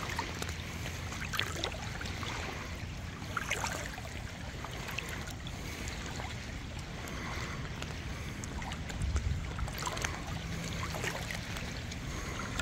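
Water lapping and splashing at the shore, with irregular small splashes and a steady low wind rumble on the microphone.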